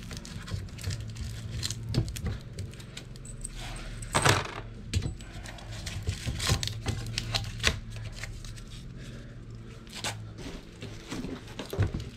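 Metal hardware clinking and knocking: washers and wheel pins being handled and set down on the steel bed of a garden dump cart. The knocks come at irregular intervals, the loudest about four seconds in, over a steady low hum.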